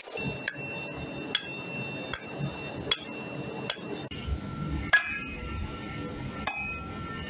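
Hammer blows on a red-hot steel blade blank lying on a steel-beam anvil: sharp metallic strikes, each ringing briefly. About five come evenly, a little under a second apart, then two more, spaced further apart, in the second half.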